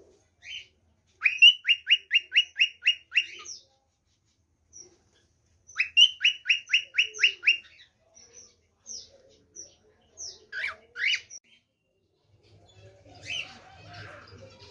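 A songbird singing two runs of rapid, repeated down-slurred notes, each run about two seconds long, followed by scattered single call notes. Near the end a low hum and fainter mixed sounds come in.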